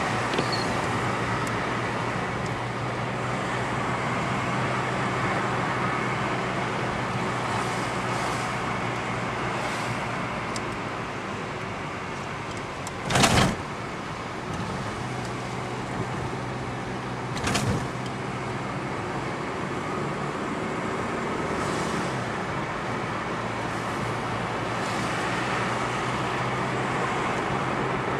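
A car driving, heard from inside the cabin: a steady engine hum under road and tyre noise. A loud short thump comes about halfway through, and a softer one about four seconds later.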